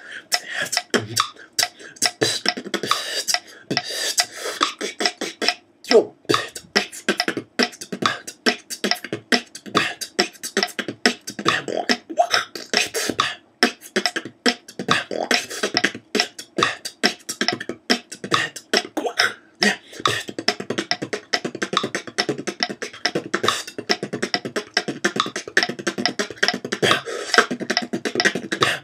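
Human beatboxing: a continuous, steady-tempo mouth-made beat of bass kicks, hi-hats and rim shots, held evenly throughout.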